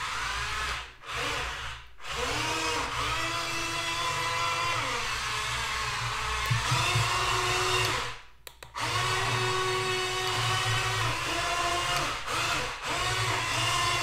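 Electric drivetrain of a WPL E1 1/16 RC tracked vehicle whining as it drives, the pitch rising and falling with the throttle. It cuts out briefly about a second in, again at two seconds, and once more just past the middle.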